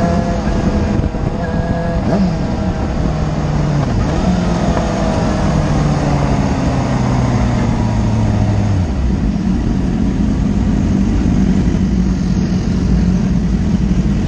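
Sport motorcycle engine heard from a bike-mounted camera, with heavy wind rumble on the microphone. The engine note falls steadily from about four seconds in as the bike slows, then settles to a steady lower note near the end as it comes to a stop in traffic.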